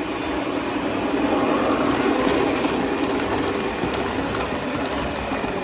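O scale model passenger train running by on its track, growing louder over the first two seconds as it comes out of a tunnel. The wheels rumble along the rails with a rapid fine clicking.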